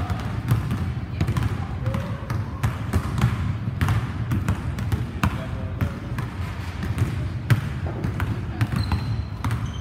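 Basketball dribbled on a hardwood gym floor: a run of quick, irregular bounces.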